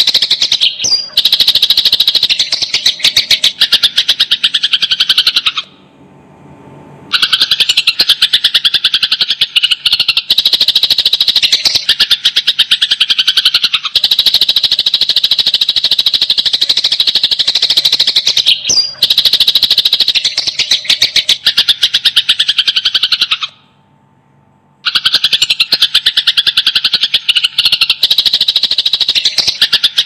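Sparrows giving rapid fighting calls: a dense, unbroken run of sharp chirps, many to the second. The run breaks off twice, for about a second each time.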